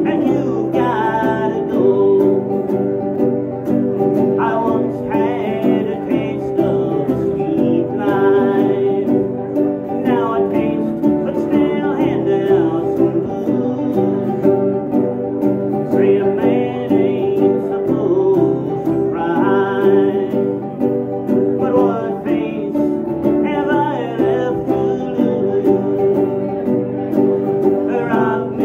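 Cigar box guitars played in a country-blues song with singing over them. The recording is dull, with no high end.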